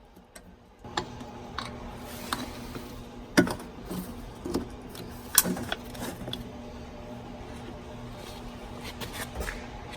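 Scattered sharp clicks and knocks of hand work, handling plastic and metal parts while fitting zip ties, over a steady low hum that starts about a second in.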